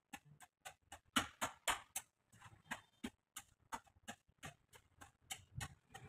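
Faint, irregular series of sharp taps and knocks from hand-tool work, about two to three a second, with a few louder knocks about a second in.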